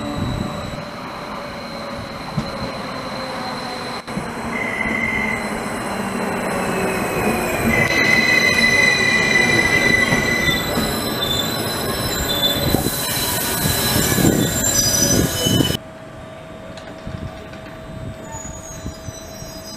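Westbahn Stadler KISS double-deck electric train rolling slowly through the station, its wheels and brakes squealing in several high, steady tones over a rumble. About 16 seconds in the noise cuts off sharply, leaving a quieter hum with faint squeaks.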